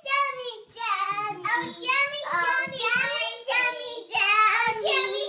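A child singing a tune in a high voice, a string of sung phrases with held notes and short breaks between them.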